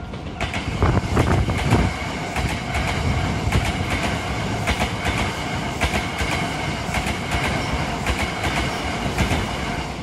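Hankyu 1000-series electric train passing through a level crossing, its wheels clattering over the rail joints in a quick, uneven run of clacks.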